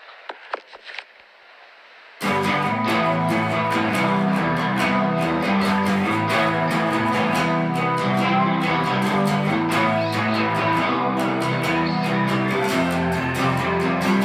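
A few faint clicks and low noise, then about two seconds in a song's guitar intro starts suddenly: a plucked guitar figure repeating over a steady rhythm.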